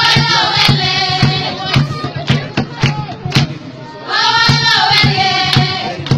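A group of girls singing a Somali wedding folk song in unison over a steady percussive beat of about two strokes a second. The voices pause for a moment about three seconds in and come back in about a second later.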